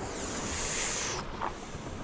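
Sea washing against the rocky shore: a hissing rush that stops about a second in, over a steady background of surf and wind.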